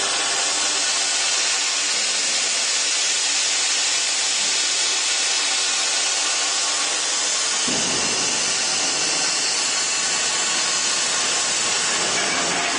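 Plasma torch of a five-axis pipe-cutting machine cutting through a steel pipe: a loud, steady hiss from the plasma arc that fills out in tone a little past halfway through.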